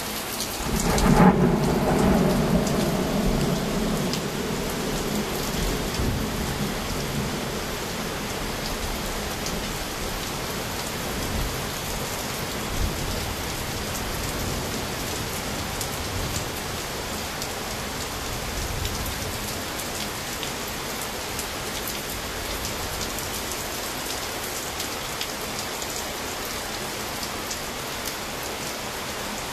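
Thunderstorm: a loud thunderclap about a second in that rolls on as rumbling and fades over several seconds, over steady rain falling.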